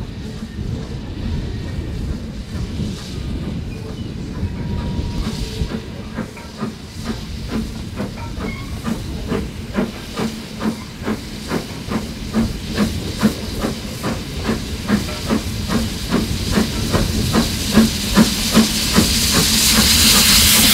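Steam locomotive working along the line, its exhaust beating in a steady chuff of about three beats a second that grows louder as it approaches, with a loud hiss of steam building near the end.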